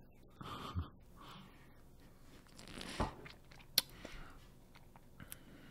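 Coffee being sipped close to the microphones: a few short sips and swallows, with a couple of sharp clicks of mouth or cup.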